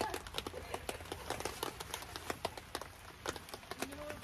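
Rain dripping, with irregular sharp taps of drops, several a second.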